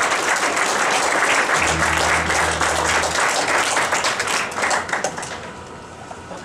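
Audience applauding at the end of a band performance, dense clapping that dies away about five seconds in. A low steady hum sounds for about a second and a half in the middle.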